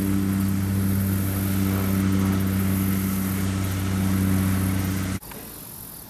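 Farm tractor engine running steadily at a constant pitch, cutting off abruptly about five seconds in. After it, faint insects chirring.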